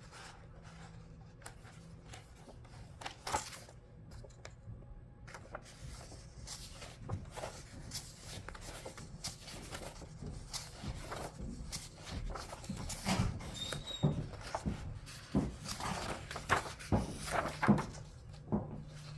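Pages of a large picture book being turned by hand: paper rustling and flapping, with soft taps as the pages and cover are handled. The rustles come more often and louder in the second half.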